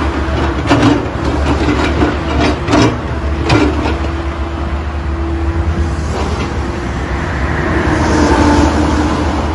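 Backhoe excavator's engine running steadily, with several sharp clanks in the first four seconds and a louder hissing rise about eight seconds in.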